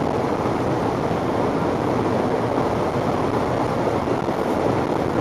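Car creeping through floodwater, heard from inside the cabin: a steady, even rush of water and tyre noise against the car.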